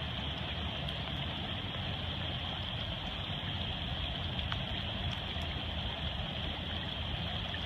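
Steady rush of a fast, powerful river with rain falling, a constant noise with a low rumble underneath.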